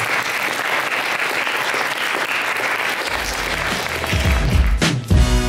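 Audience applauding steadily. About three seconds in, music with a heavy bass line fades in under the clapping and takes over near the end.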